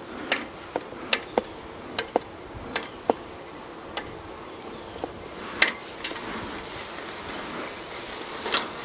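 Honeybees buzzing around an open hive, with a dozen or so sharp clicks and knocks scattered through it, the loudest a little past halfway.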